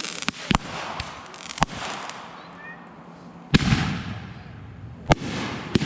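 Consumer fireworks going off: a string of sharp bangs at uneven intervals, the loudest about three and a half seconds in, each followed by a trailing noisy tail.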